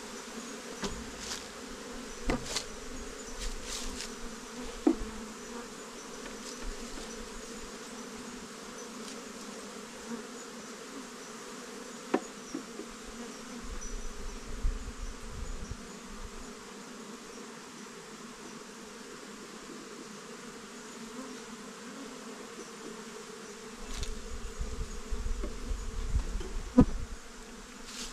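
A swarm of flying insects buzzing steadily, with a few sharp knocks scattered through. Bursts of low rumbling handling noise come in the middle and again near the end.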